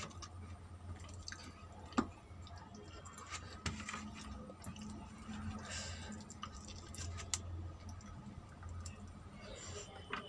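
Eating rice by hand: fingers squishing and mixing rice and curry on a plate, with chewing and mouth sounds and a few sharp clicks, the strongest about two seconds in. A steady low hum runs underneath.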